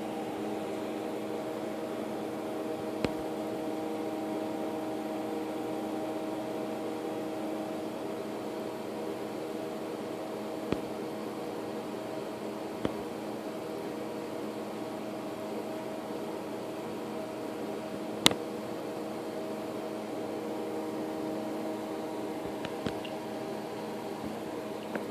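A steady machine hum with several low tones, broken by about five sharp clicks, the loudest about eighteen seconds in.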